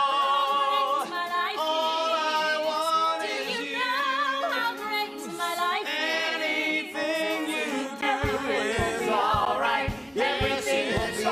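Several stage voices singing held, vibrato-laden notes together in harmony from a musical number, with little accompaniment at first. About eight seconds in, low, regularly pulsing accompaniment notes join the singing.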